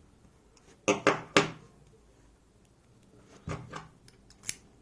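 Sharp clicks and knocks from handling a picked EVVA 3KS lock cylinder while trying to work its core out: three about a second in, two more past the middle, and one near the end. The core is stuck and won't slide free.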